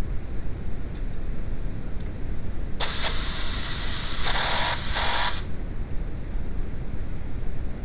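A hiss of pressurised spray lasting about two and a half seconds, starting and stopping abruptly with a brief break midway, over a steady low rumble.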